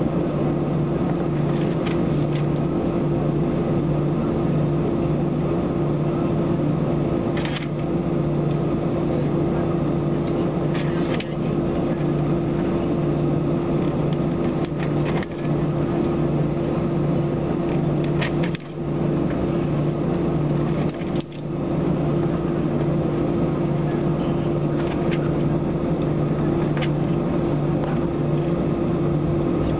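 Steady cabin hum of an Airbus A321-231 on the ground, its IAE V2500 engines idling: an even drone carrying a low tone and a higher tone, with no spool-up. A few faint ticks come and go.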